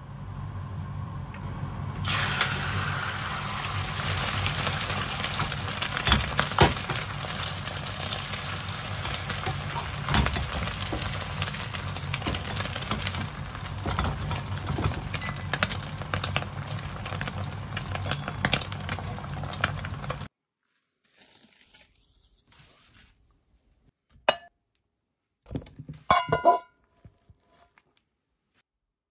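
Beaten egg sizzling and crackling in hot oil in a nonstick frying pan over a low steady hum, starting about two seconds in and cutting off suddenly well before the end. After that come a few short clinks of dishes.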